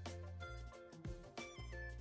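Background music with a steady beat and a pitched melody over a bass line.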